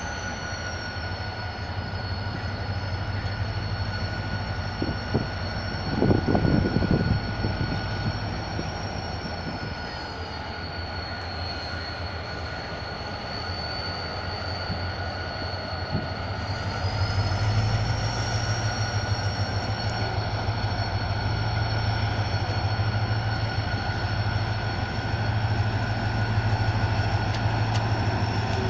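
Pakistan Railways train pulling out of a platform, with high steady squealing tones, one of them slowly falling and rising in pitch, over a low hum. A louder rattling burst comes about six seconds in, and the low hum grows louder past the middle.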